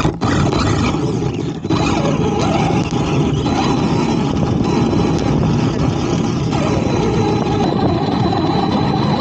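Arrma Typhon RC buggy driving fast over sand, heard from a camera mounted on the car: a loud, dense rush of wind and tyre-on-sand noise over the electric motor's whine, whose pitch swings up and down with the throttle.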